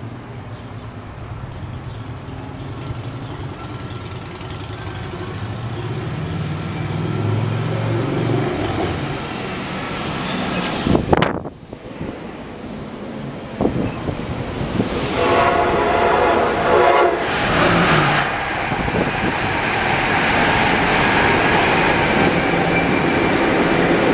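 SEPTA Silverliner IV electric multiple-unit commuter train approaching and pulling into the station, its rumble growing steadily louder over the first ten seconds. A brief loud thump comes about eleven seconds in. The cars then roll past close by, with wheel noise and steady tonal sounds heard several seconds later.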